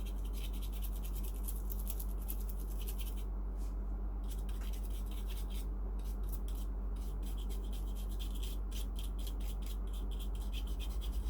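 Phone circuit board being scrubbed clean with thinner: a run of quick scratchy brushing strokes, coming faster in the second half, over a steady low electrical hum.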